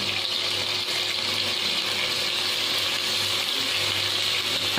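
Chicken and onions sizzling in hot oil in a pan, a steady even hiss, over a steady low hum.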